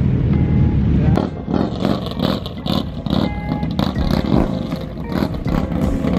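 Low rumble heard from a moving motorcycle. About a second in it cuts to several motorcycles rolling past slowly at low revs, with uneven engine pulses.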